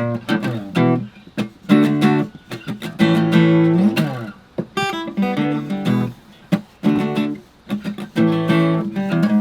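Background music: plucked and strummed acoustic guitar, with one note sliding down about four seconds in.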